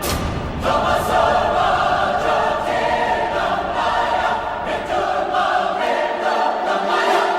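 Background music: a choir singing held chords.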